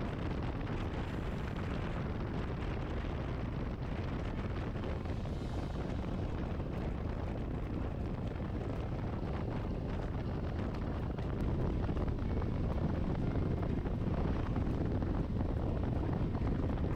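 A KTM 990 Adventure motorcycle riding at highway speed, heard mostly as heavy wind rush on the camera's microphone, with the bike's running underneath. It grows louder about eleven seconds in.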